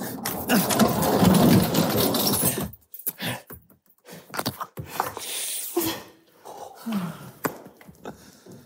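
Large wooden hamster wheel rumbling and clattering as it spins under a runner for the first few seconds, then stopping abruptly. Afterwards come scattered knocks, stifled laughter and a few hand claps near the end.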